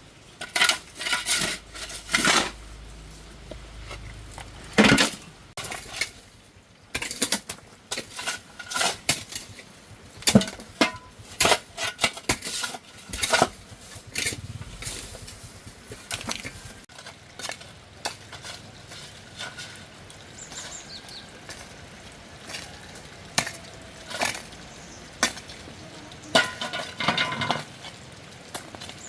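Metal garden tool digging and scooping stony soil: irregular sharp clinks and scrapes as the blade strikes stones, some with a brief metallic ring.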